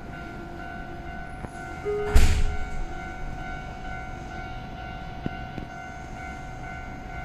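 Keisei 3200-series commuter train standing at a station, heard from inside the car: a steady electrical hum with a few held tones, broken by a sudden loud burst about two seconds in.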